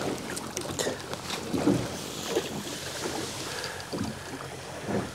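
Choppy water slapping against the hull of a small boat in irregular splashes.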